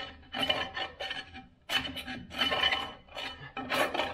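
Hand tool scraping caked rust and old brake debris off the steel drum-brake backing plate of a Toyota FJ40 Land Cruiser, in short repeated strokes about two a second, each with a thin metallic ring.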